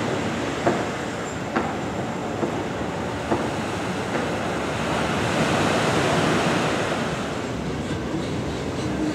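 Ocean surf breaking and washing up onto a sandy beach, a steady wash of noise that swells about halfway through. A few sharp knocks stand out in the first few seconds.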